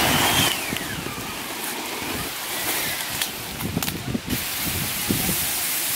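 Inflatable boat being pushed down a muddy bank into the water: irregular scuffs and thumps, over a steady hiss of wind on the microphone.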